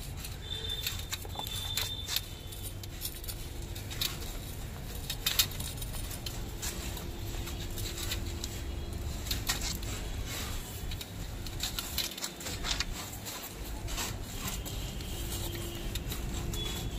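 Coil of soft copper AC pipe being unrolled along a concrete floor, held down underfoot: scattered light clicks, ticks and scrapes of the copper against the concrete over a steady low rumble.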